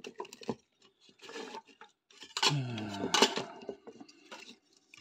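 Light clinks and knocks of a circuit board and the sheet-steel chassis of an old mains power supply being handled, with a brief low mumble a little past halfway.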